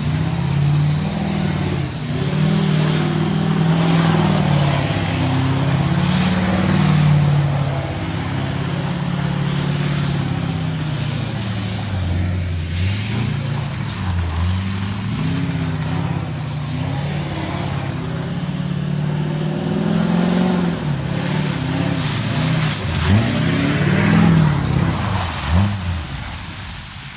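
Duramax diesel pickup engine under way, its revs rising and falling again and again, with a few quick sharp revs near the end.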